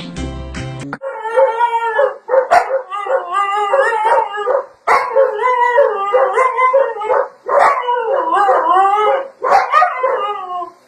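A dog howling in long, wavering calls, about five of them with short breaks between, after a second of music.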